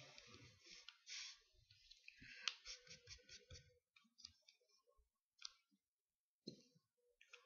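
Faint clicks and short scratchy rustles of a pen and hand moving over drawing paper, busiest in the first few seconds, then a few isolated clicks.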